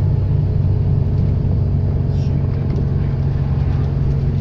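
A bus's turbocharged diesel engine running at a steady, even pitch. A brief, faint high whistle comes about two seconds in.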